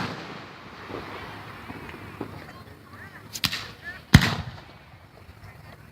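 Aerial firework shells bursting: the tail of a boom fading at the start, a sharp crack about three and a half seconds in, then a louder boom just after that rolls off.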